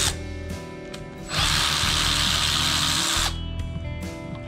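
Makita cordless ratchet spinning screws out of a diesel injection pump's AFC housing: the tail of one run right at the start, then a second run of about two seconds with a steady high whine, over background music.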